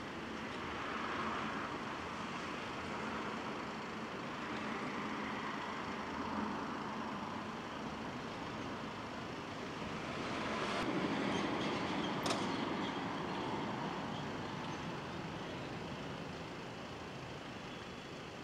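Steady road traffic noise, swelling as a vehicle passes about ten to thirteen seconds in, with one sharp click about twelve seconds in.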